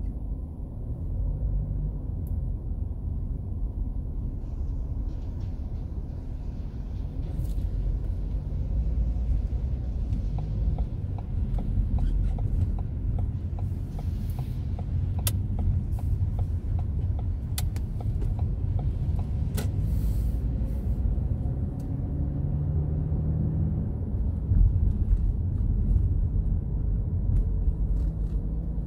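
Car cabin noise while driving on wet streets: a steady low engine and road rumble, with the hiss of tyres on the wet road coming in a few seconds in as the car gets moving. A run of light, evenly spaced ticks sounds in the middle.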